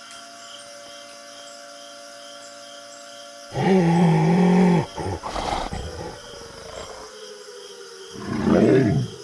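Monster roar sound effect: a loud low roar about three and a half seconds in, rough scuffling after it, and a second sweeping growl near the end. An air-raid siren wails faintly in the background, its pitch slowly falling.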